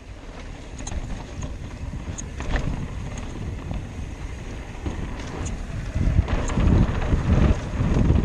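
Wind buffeting the microphone over the rolling rumble and rattle of a Trek Slash 9.8 full-suspension mountain bike descending a dirt trail at speed, with scattered small knocks from the trail. The wind rumble grows louder about six seconds in.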